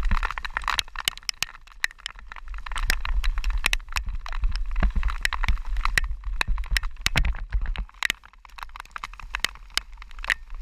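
Raindrops striking the camera's waterproof housing in many irregular sharp ticks, over a low wind rumble on the microphone and the hiss of tyres on a wet, waterlogged path while riding.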